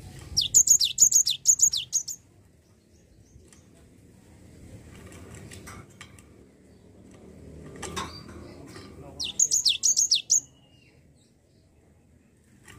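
Cinereous tit (gelatik batu) singing: two bursts of rapid, high-pitched notes that each sweep downward, the first at the start and the second about nine seconds in, each lasting about a second and a half. A light knock sounds about eight seconds in.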